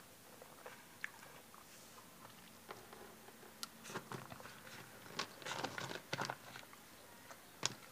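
Close-up chewing of sour sugar-coated gummy candies: soft wet mouth clicks and smacks that start about three seconds in and come in short clusters, with a sharper click near the end.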